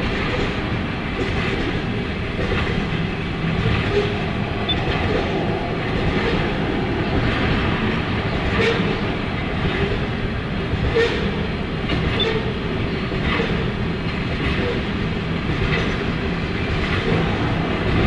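Union Pacific freight train passing a grade crossing: a steady rumble, with wheels clicking over rail joints every couple of seconds.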